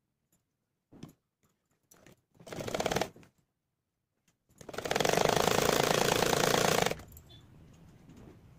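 Domestic sewing machine stitching: a short run that picks up speed, then a longer steady run of rapid stitches that stops suddenly, with a few light clicks of handling before.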